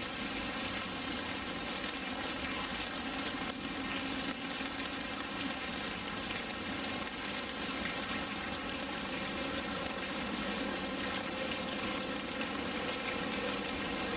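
Steady rush of running water in a polar bear enclosure's pool, even and unbroken.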